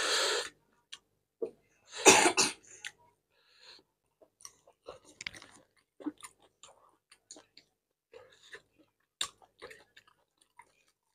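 A man chewing a mouthful of rice and curry eaten by hand, with soft wet mouth clicks and smacks scattered through. A louder breathy burst comes about two seconds in.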